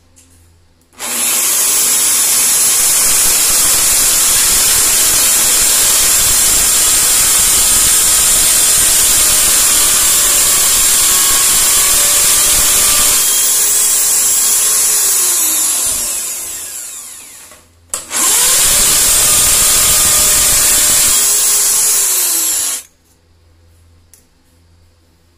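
Electric drill boring into a ceramic-tiled wall. It runs steadily for about fifteen seconds and winds down, then makes a second, shorter run of about four seconds that cuts off suddenly.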